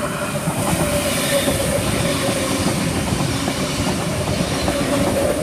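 V-set electric intercity train passing through the station: a dense, continuous clatter of wheels over the rails with a steady whine running beneath it.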